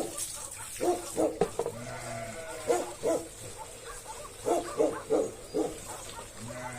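Farm animals calling: clusters of short, quickly repeated calls, with a longer low call about two seconds in and another near the end.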